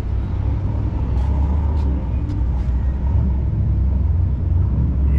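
Steady, loud low rumble of car engines running nearby, with a few faint ticks.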